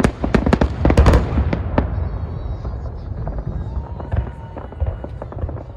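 Salute fireworks bursting overhead: a rapid run of bangs and crackles, loudest about a second in, thinning after two seconds to scattered pops over a low rumble.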